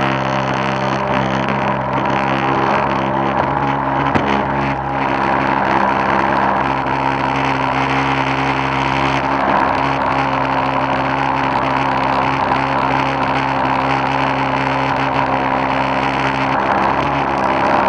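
Arrow Shark RC boat's motor running steadily at one constant pitch, heard close up from on board, over the rushing hiss of water along the hull.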